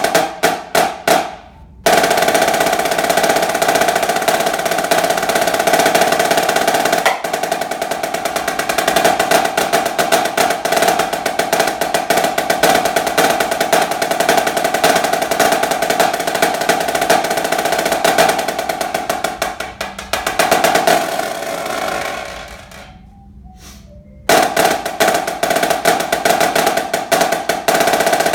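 Solo snare drum played with sticks: fast rolls and rudimental patterns over a steady drum ring. It opens with a few separate strokes and a brief pause, plays loud and dense, dies away to a very soft roll about 22 seconds in, then comes back loud.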